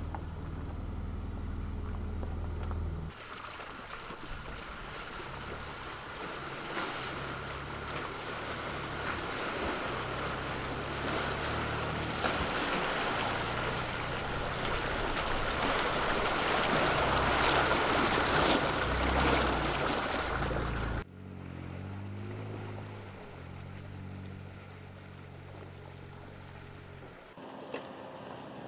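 Ford Ranger Raptor pickup ploughing through deep muddy water: a loud rush of splashing water over the engine's low running note, building to its loudest near the end and cutting off suddenly about 21 seconds in. Before and after it, the truck's engine runs at low speed on the trail.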